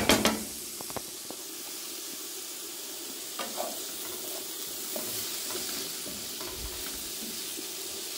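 Shredded zucchini and onion sizzling in a hot frying pan while a wooden spoon stirs and scrapes through it. A quick cluster of sharp knocks of the spoon against the pan at the very start is the loudest part, with a few lighter knocks later.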